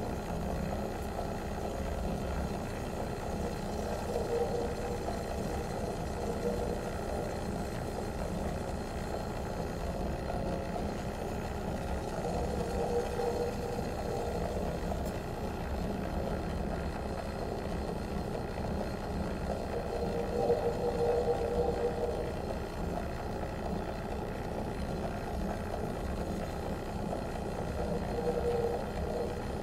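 Live improvised electroacoustic music: a steady, dense low drone, with a mid-pitched tone swelling up and fading about every eight seconds.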